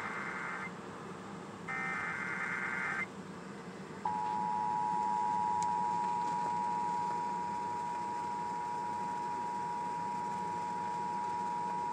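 Emergency alert broadcast announcing a severe thunderstorm warning: the end of one screeching digital header burst, a second burst, then after a short pause a steady two-tone alert signal held for about eight seconds.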